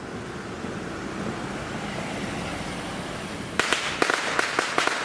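A string of firecrackers going off: about ten sharp cracks in quick succession, starting about three and a half seconds in, after a few seconds of steady street noise.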